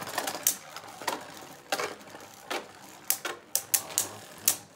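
Two Beyblade Burst spinning tops whirring in a plastic stadium, knocking against each other and the walls in a run of sharp, irregular clicks.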